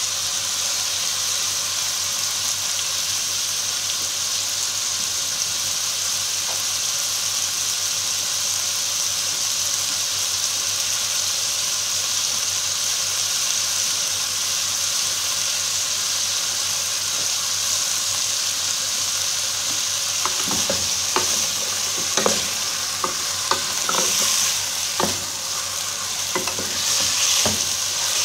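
Chicken pieces frying in oil in an aluminium pot, sizzling steadily. About two-thirds of the way in, a spatula stirs them, knocking against the pot several times.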